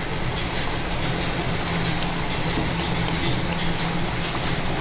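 Rui fish curry simmering in its thick gravy in the pan, a steady sizzling, bubbling hiss with a low hum underneath, as the bhuna nears the end of cooking.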